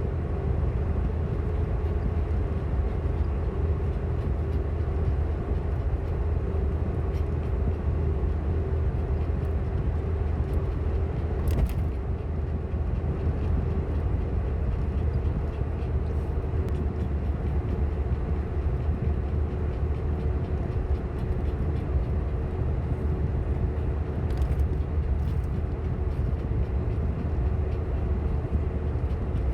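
Steady low drone of a car driving, heard from inside the cabin, with a single brief click about twelve seconds in.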